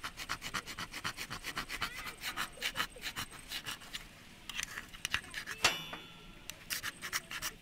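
Steel striker scraped quickly along a ferrocerium fire-starter rod in short strokes, about five a second, to throw sparks for lighting char cloth. A little past the middle one harder stroke gives a brief metallic ring, then the scraping pauses and starts again near the end.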